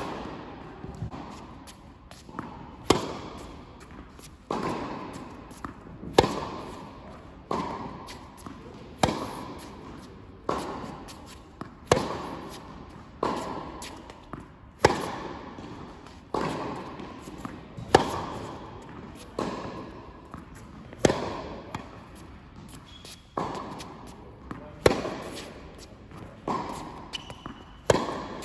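Tennis rally: a tennis ball struck back and forth by racket strings, a sharp hit about every one and a half seconds, the near player's hits louder than the far player's. Each hit rings briefly in the echo of a large indoor hall.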